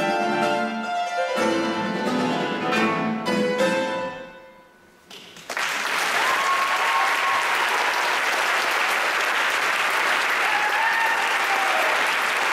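Tenor hackbrett (hammered dulcimer) and classical guitar playing the closing bars of a waltz, the last note ringing out and fading about four seconds in. After a short quiet gap, an audience starts applauding and keeps on.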